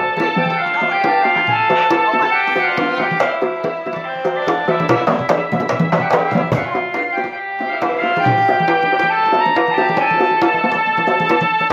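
East Javanese Bantengan ensemble music: drums beat a steady rhythm under a sustained electronic keyboard melody. The level drops briefly a little past halfway.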